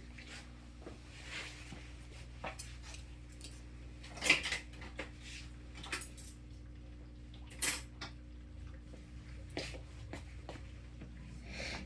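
Metal barber tools clinking and clicking: a scattered series of sharp metallic clicks, two of them louder about four and eight seconds in, over a faint steady hum.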